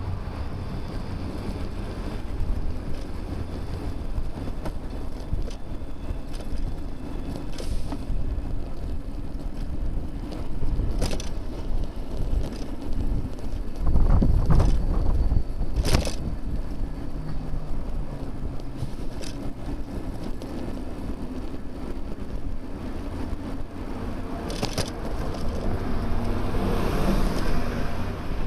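Steady wind and road rumble picked up by a bicycle-mounted camera while riding. About halfway through the rumble gets louder and ends in a sharp knock, with a few fainter knocks elsewhere.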